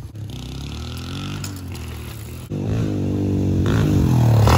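Dirt bike engine running: distant and fainter at first, then about halfway in, close and louder, its pitch rising as the bike is throttled up toward the camera.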